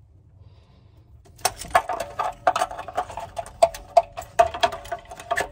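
A screw being driven by hand with a screwdriver into the sheet-metal electrical cover plate on top of an electric water heater: irregular clicking and scraping with a short metallic ring, starting about a second and a half in.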